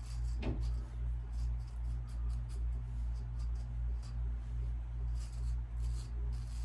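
Safety razor scraping across lathered stubble in short, repeated strokes, over a steady low hum.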